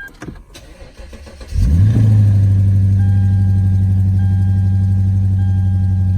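A sharp click, then about one and a half seconds in a 1700 psi electric pressure washer's motor starts. It spins up quickly to a loud, steady hum at one fixed pitch, with a faint high whine that comes and goes.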